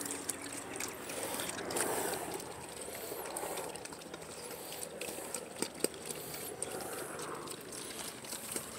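Several pigs eating at feed pans: an irregular, wet sound of chewing with small scattered clicks.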